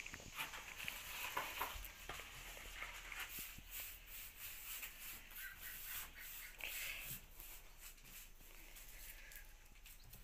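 Faint scattered footsteps and handling knocks, with a few faint short bird chirps.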